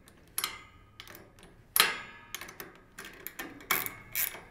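Wrench working the bolts of a metal antenna mount bracket on a roof rack: a series of sharp metallic clicks and clinks, the loudest about two seconds in with a brief ring, coming at a steadier pace near the end.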